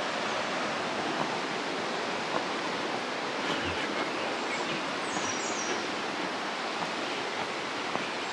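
The river Wied rushing steadily, running high with plenty of water.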